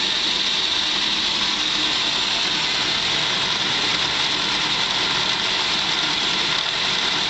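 13-inch drill press converted to a milling machine, running steadily with its mill cutter working along the top of a metal T-slot.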